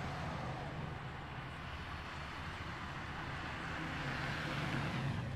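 Street traffic noise: a steady vehicle rumble that swells near the end, as if a car passes close by, then drops off sharply.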